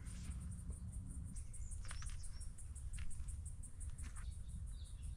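Insects chirping in a fast, even, high-pitched pulse, with a few short bird chirps around the middle, over a low steady rumble.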